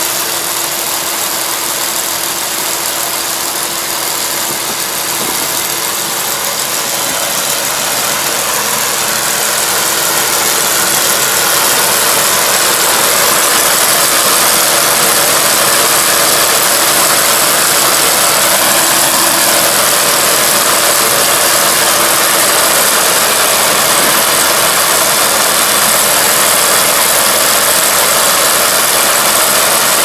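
Iseki rice combine harvester running steadily while it cuts rice, a continuous engine and machinery noise with a constant low hum. It grows somewhat louder about ten seconds in.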